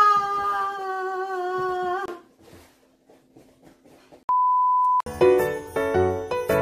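A woman's long, drawn-out vocal cry held for about two seconds and sliding slightly down in pitch. Then a short stretch of quiet, a steady one-tone electronic beep lasting under a second, and light chiming music starting about five seconds in.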